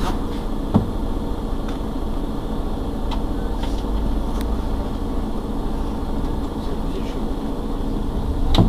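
Mercedes-Benz Citaro G C2 articulated bus idling steadily at a stop: a low, even engine hum, with a sharp knock about a second in and another near the end.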